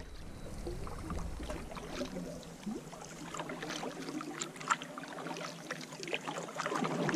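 Canoe paddle strokes through calm lake water: the blade splashing in and pulling, with drips and small splashes off the paddle between strokes.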